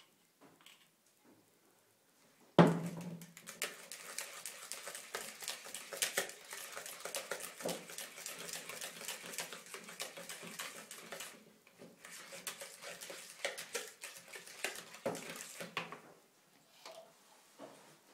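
A sharp knock about two and a half seconds in, then a wire whisk stirring a thick creamy garlic sauce in a bowl: rapid clicking and scraping of the wires against the bowl, with a short pause midway, stopping shortly before the end.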